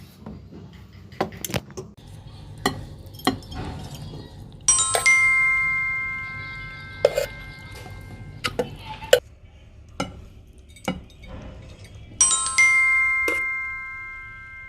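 A bell-like chime struck twice, about seven and a half seconds apart, each ringing out and fading over two to three seconds, with scattered sharp knocks and clicks in between.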